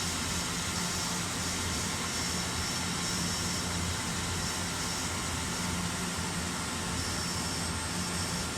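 Nakamura-Tome Super NTM3 CNC turning center running steadily in its machining cycle: an even machine noise with a low hum and a thin high whine.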